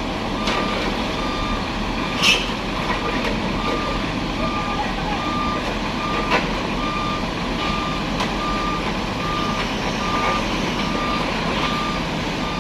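A truck's reversing alarm beeping at about two beeps a second over the running engine of a large truck. A sharp knock about two seconds in, and a smaller one about six seconds in.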